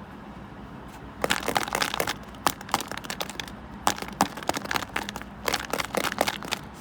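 Crinkling and crackling from small things being handled, in irregular bursts of sharp clicks that begin about a second in and stop near the end.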